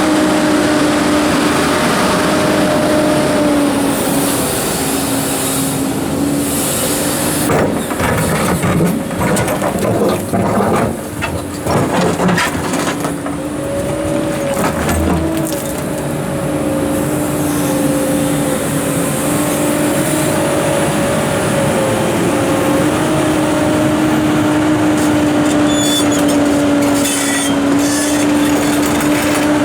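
Komatsu PC290-11 excavator's diesel engine and hydraulics running steadily with a constant hum while loading, its pitch dipping slightly and recovering. For several seconds near the middle, heavy rocks knock and clatter against steel.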